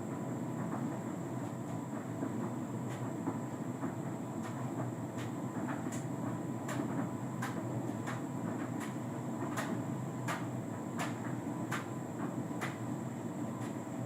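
Hotpoint Ultima S-line tumble dryer running a duvet load: a steady drum-and-fan rumble with a thin high-pitched whine, and light sharp clicks about once or twice a second from a few seconds in.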